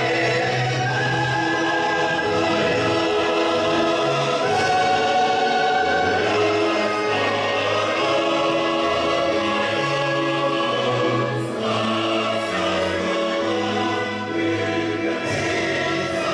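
Music: a choir singing sustained notes over a slow-moving bass accompaniment.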